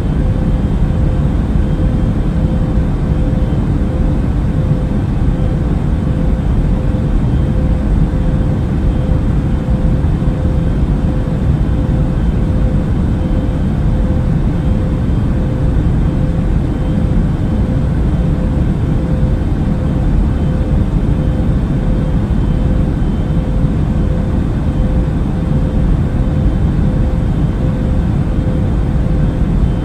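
Steady airliner cabin noise: an even, deep rush of engine and airflow sound, with a constant mid-pitched hum running through it.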